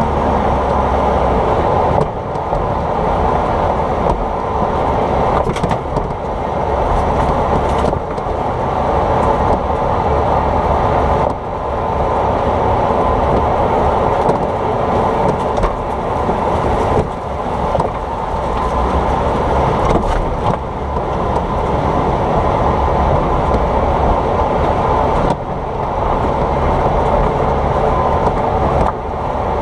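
Vehicle road and wind noise picked up close to a wheel's shock absorber while driving, with short sharp knocks every few seconds: the suspension clunk being tracked down.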